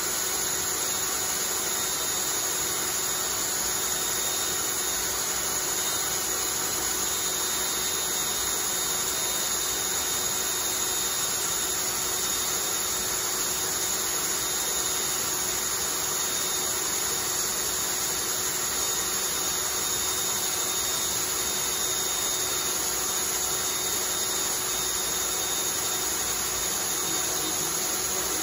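Homemade centrifuge, a cordless drill spinning a wooden disc rotor, running at a steady speed: an even whir with a constant hum through it and no change in speed.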